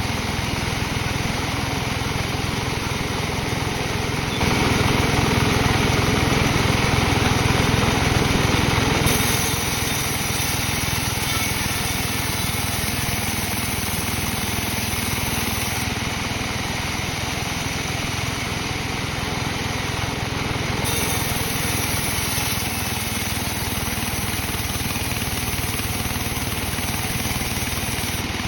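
Sawmill machinery running steadily with a dense mechanical noise. It grows louder for about five seconds, starting a few seconds in, then settles back.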